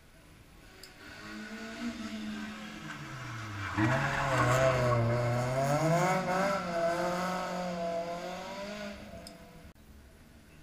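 Rally car engine approaching and dropping in pitch as it slows into a gravel hairpin, then suddenly louder as it accelerates hard out of the bend, its revs rising and wavering. The engine note then fades as the car drives away up the road.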